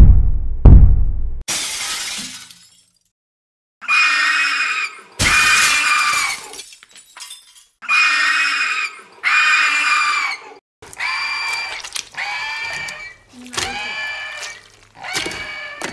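A heavy thump against glass, then a pane of glass shattering, as a creature breaks out of its glass cell; a second impact follows a few seconds later. After the pause comes a series of high-pitched, pitched cries, shorter and falling in pitch toward the end.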